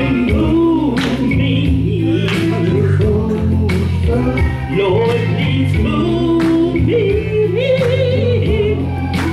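Gospel song sung live into microphones by a woman and a man, over a band with a steady bass line and drum strikes.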